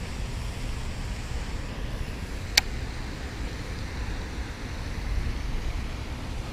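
Wind buffeting the microphone, a steady low rumble, with a single sharp click about two and a half seconds in.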